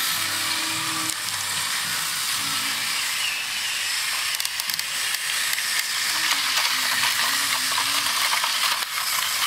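Battery-powered Thomas & Friends toy trains running on TOMY plastic track: a steady whirring rattle of small motors and gears with dense fine clicking from the wheels, thickening about halfway through as a train passes close.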